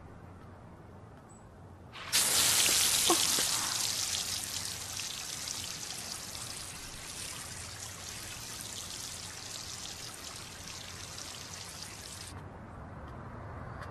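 Park fountain's water jets splashing: the spray starts suddenly about two seconds in, loudest at first, then settles into a steady rush of falling water and cuts off suddenly near the end.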